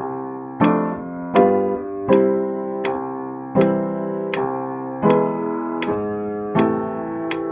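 Piano playing a slow, simple beginner's piece, a note or chord struck on a steady beat about every three quarters of a second and left to ring.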